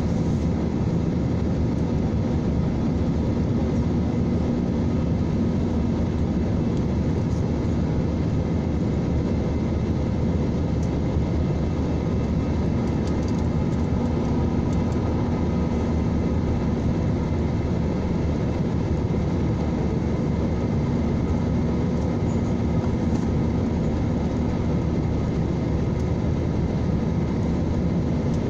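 Steady cabin noise of a jet airliner climbing after takeoff: constant engine roar and rushing air heard from inside the cabin, with a faint steady hum underneath.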